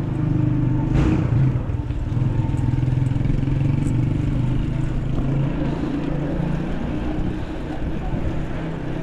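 A motor vehicle's engine running close by with a steady hum that weakens after about five seconds. There is a sharp click about a second in.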